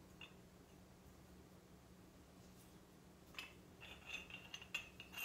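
Near silence for about three seconds, then several faint, light metal clicks and clinks from the parts of a stainless-steel home oil press being handled: its pressing rod taken out and fingered.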